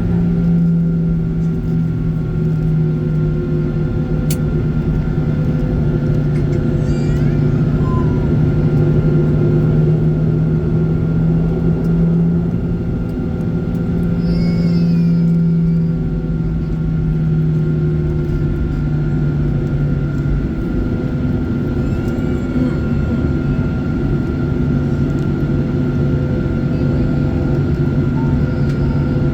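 Boeing 737-900ER's CFM56 jet engines running steadily: a continuous low rumble with a strong hum and a few steady higher tones, no rise in pitch or level.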